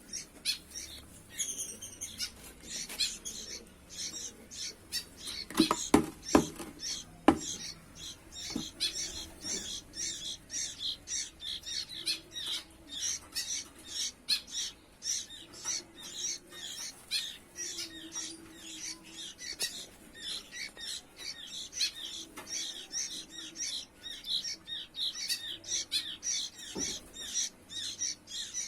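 Sooty-headed bulbul chicks giving rapid, continuous high-pitched begging chirps. A few sharp knocks come about six to seven seconds in.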